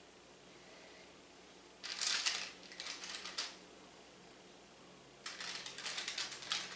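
Paper liner in an air fryer basket crinkling and rustling, with small clicks, as stuffed jalapeno poppers are set in and leaned against each other; two bouts, one about two seconds in and one starting near the end.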